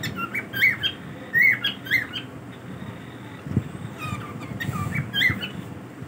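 Cockatiels giving short squawking chirp calls: a quick run of several in the first two seconds, then another cluster about five seconds in.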